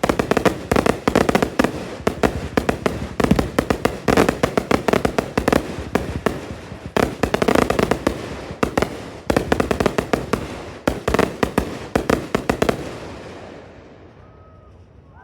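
Fireworks going off in a dense, rapid barrage of crackling pops. The crackling dies away about thirteen seconds in.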